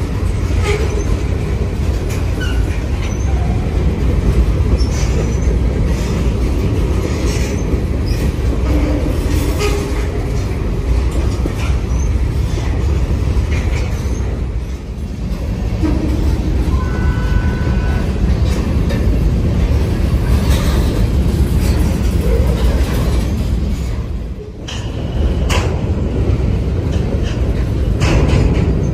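Freight train of covered hopper cars rolling past close by: a steady rumble of steel wheels on rail with scattered clicks and clanks.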